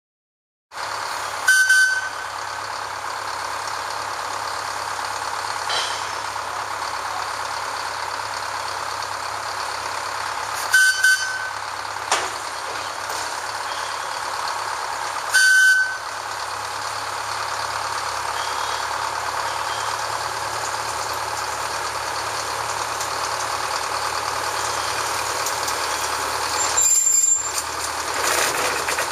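Small narrow-gauge Plymouth switcher locomotive's engine running steadily, with three short toots of its horn spread apart and a brief high squeal near the end as it starts to move out.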